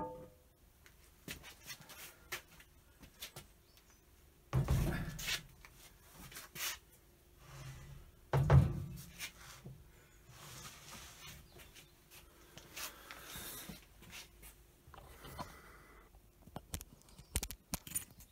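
A heavy cast-iron lathe slide casting being handled on the machine ways and bench. There are two heavy thuds, about four and a half and eight and a half seconds in, then metal rubbing on metal as the scraped surfaces are worked against each other to spot the marking ink, and a run of small knocks near the end.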